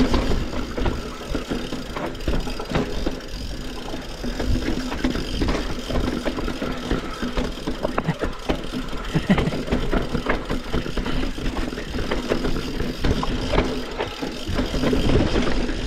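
Yeti SB140 full-suspension mountain bike descending a dirt and rock trail. Its tyres rumble steadily over the ground, and the bike rattles with many small knocks and clatters from chain and frame over the bumps.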